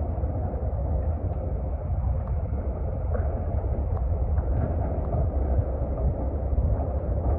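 A steady low engine rumble with no distinct events.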